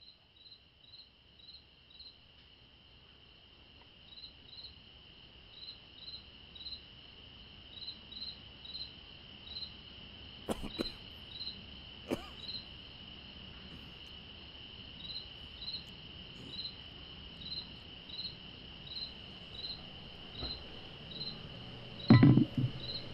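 Night crickets: a steady high trill with separate short chirps repeating above it, fading in at the start. Two faint clicks come in the middle and a louder knock near the end.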